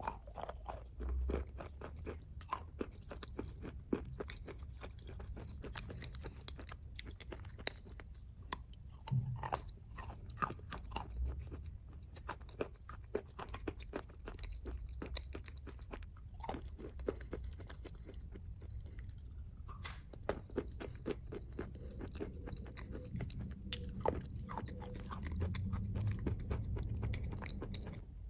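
Close-miked chewing of chalk coated in wet clay paste: a dense run of sharp crunches and crackles as the chalk breaks between the teeth.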